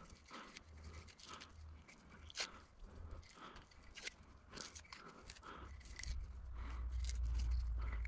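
Birch bark being peeled and torn off a birch log by hand: a run of faint, irregular crackles and rips. A low rumble builds near the end.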